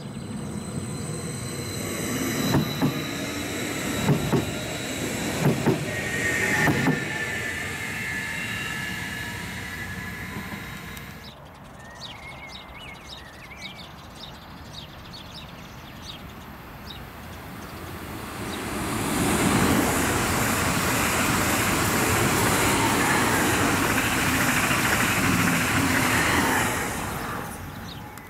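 Two coupled class 1430 electric multiple units passing on the line, a loud steady rush of wheels on rail for about eight seconds in the second half, fading away near the end. Before it, in the first seconds, quieter rail sounds with a few low thumps and high whining tones.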